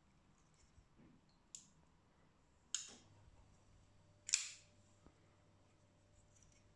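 Rick Hinderer Firetac folding knife clicking as its blade is snapped shut and flipped open again: three sharp clicks, the last and loudest about four seconds in.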